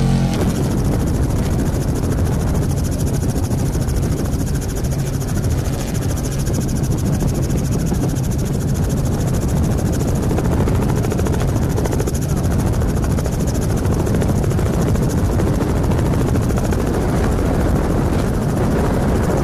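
Helicopter running steadily overhead, its rotor chop and turbine making a constant, even drone with no change in pitch.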